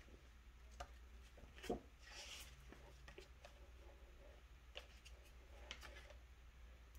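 Near silence: room tone with a few faint scattered clicks and taps, the loudest about a second and a half in, and a brief soft rustle just after it.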